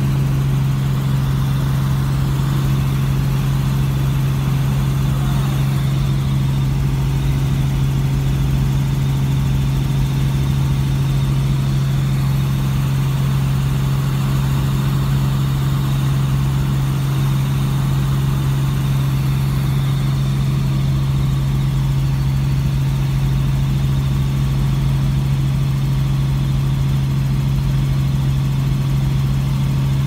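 Helicopter engine and rotor drone heard from inside the cabin: a loud, steady hum that does not change.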